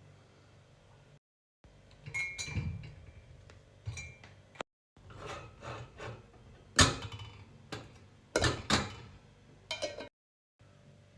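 Kitchen handling sounds: a series of sharp knocks and clinks, some with a brief ringing tone, broken by sudden cuts to silence between short clips.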